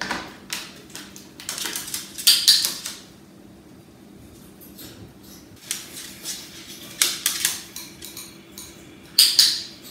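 Bursts of clicking and rattling clatter from a plastic pet carrier and its wire door as a male Eclectus parrot climbs out and steps onto the table, in three bunches about a second in, around six to seven seconds in, and near the end.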